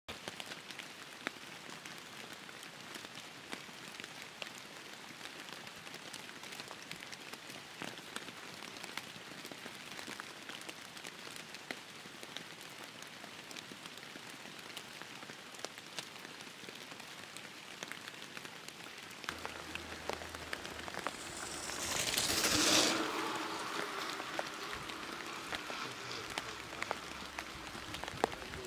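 Steady rain pattering, an even hiss full of fine drop clicks. About three-quarters of the way through, a louder rushing sound swells and fades away.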